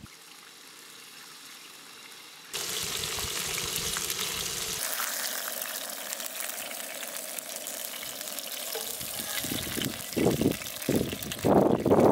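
Chicken fillets sizzling in oil in a nonstick frying pan on a portable gas stove. The sizzle comes in suddenly a couple of seconds in, and louder bursts of sound come near the end.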